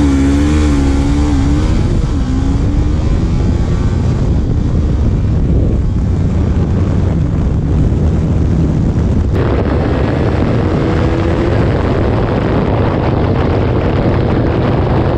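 Sport motorcycle running flat out, its engine note half buried under a loud, steady rush of wind. The engine pitch wavers in the first couple of seconds, and the wind hiss jumps suddenly about nine seconds in. The bike's gearshift is sticking and missing gears, according to the rider.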